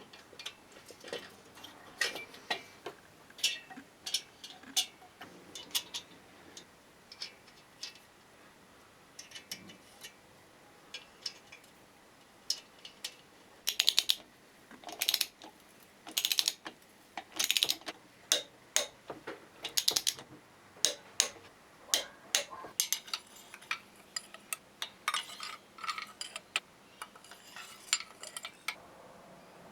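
Ratchet wrench clicking in short irregular runs, with metallic clinks of tools and parts, while the cylinder head nuts are tightened onto the engine.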